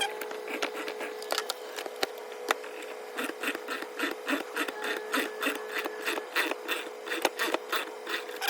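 Ball-joint press being wound in to push an old rubber bushing out of a lower control arm: a quick run of sharp metallic clicks, several a second, that gets denser from about three seconds in, over a steady hum.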